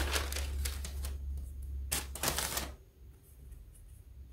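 Handling noise of a pressing board and a square acrylic quilting ruler being moved and set down on a pressing table. A rustling scrape comes first, then a sharp click and another rustle about two seconds in.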